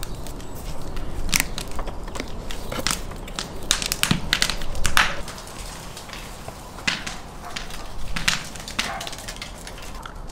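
Irregular sharp clicks and crackles from hands working on a raw lamb carcass and handling a clay pot and spoon, a few of them louder.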